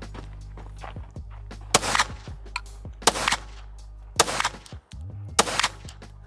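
Pistol fired four times at an even pace, about one shot every second and a quarter, each a sharp crack with a brief ring-out.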